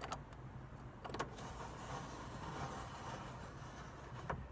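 A Toyota Corolla's manual window regulator being cranked by hand, the glass sliding in its rubber run channel. A couple of clicks from the crank handle, then from about a second in a steady rubbing hiss of the moving glass, with another click near the end.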